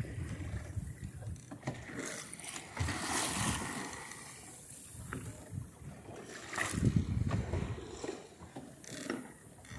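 Seawater rushing and splashing along a small sailboat's hull as it sails through swells, surging louder twice.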